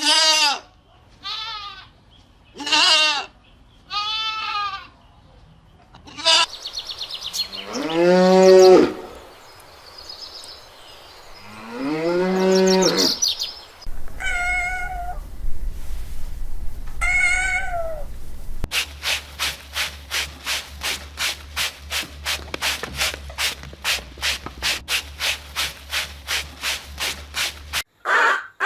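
Cattle mooing: several short higher calls, then two long, low moos about 8 and 12 seconds in, the loudest sounds here. In the second half they give way to a fast series of short repeated knocks, about three a second.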